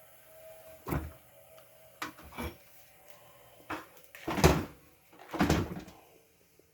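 A series of knocks and clatters of dryer panels and parts being handled and set down during disassembly, the loudest about four and a half seconds in.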